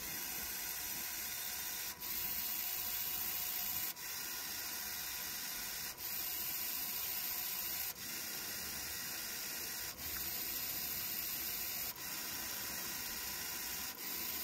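A small brushed gear motor and a vibration motor with an eccentric weight whir steadily together. About every two seconds the whir drops out for an instant with a tick as the gear motor reverses direction, and the level steps between slightly louder and quieter stretches.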